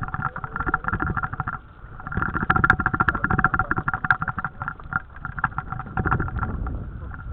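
Small outboard motor on a dinghy running with a rapid, steady pulsing hum. It dips briefly about a second and a half in, then picks up again.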